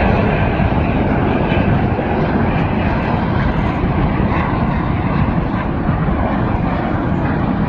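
Snowbirds' Canadair CT-114 Tutor jets in flight overhead, their turbojet engines making a steady, loud jet noise.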